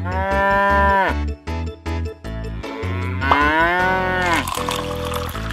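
Cow mooing twice, each moo about a second long and dropping in pitch at its end, over background music with a steady beat.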